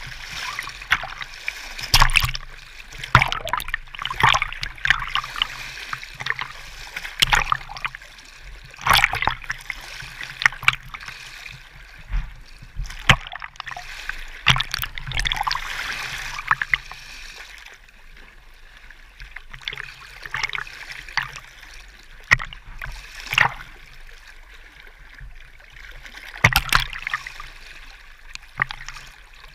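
Small waves lapping and splashing right against a camera held at the water's surface, with irregular sharp slaps and gurgles over a steady wash of water. There is a quieter, calmer stretch a little past the middle.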